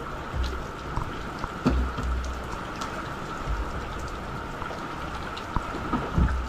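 Steady heavy rain falling on the dock and water, with a few sharp knocks, the loudest about two seconds in.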